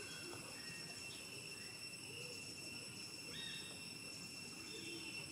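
Faint evening insect chorus: a steady shrill drone held at several fixed high pitches, with a few faint short calls in the background around the middle.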